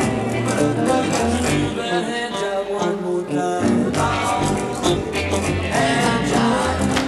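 Rock and roll band playing, with electric guitars over a steady beat; the low end drops away briefly about two to three seconds in.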